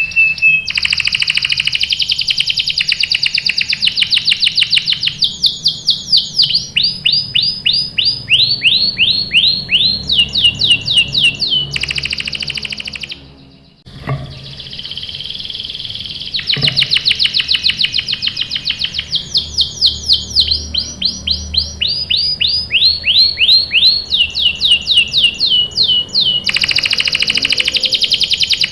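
Domestic canary singing a long song made of fast trills, each a run of rapidly repeated notes, with a new trill taking over every second or so. The song breaks off briefly about halfway through, then starts again.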